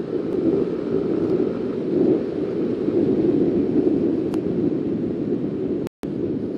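Wind rushing on the microphone of a camera riding on a Honda CB125R motorcycle at road speed, with the bike's running and tyre noise under it. The sound cuts out for an instant near the end.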